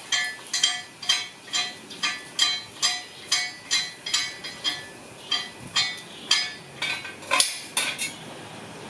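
Regular metallic clinks with a short ringing note, about two to three a second, as a jack is worked to lift a boat hull off its trailer; the clinks stop near the end.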